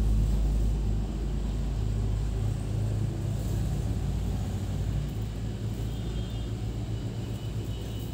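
A low, steady background rumble and hum, a little louder in the first second, then settling slightly softer.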